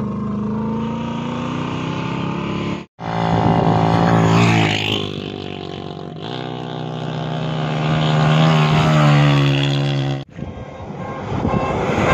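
Off-road rally vehicles' engines revving hard as they speed along a sand track, the pitch rising and falling as they pass. The sound is in three short takes, with brief dropouts about 3 s and 10 s in.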